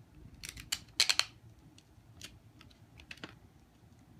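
Invisible tape pulled from a desk dispenser and torn off on its serrated cutter: a quick cluster of sharp crackling clicks about a second in, then scattered lighter ticks as the paper is handled.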